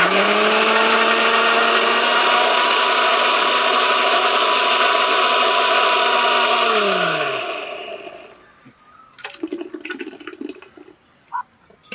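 Electric mixer grinder running steadily at full speed, grinding mango pieces into pulp. About seven seconds in it is switched off, and its whine falls as the motor spins down, followed by a few knocks and rattles of the jar.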